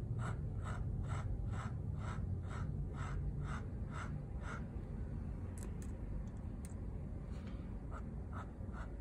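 Metal dip-pen nib scratching across watercolour paper in quick, repeated hatching strokes, about three a second. The strokes pause for a few seconds midway, with a couple of small clicks, then start again.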